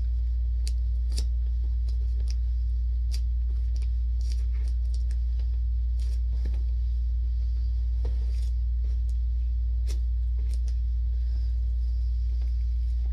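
Cardboard shipping box being pulled open by hand, with scattered sharp crackles and clicks of packing tape and cardboard flaps over a steady low hum.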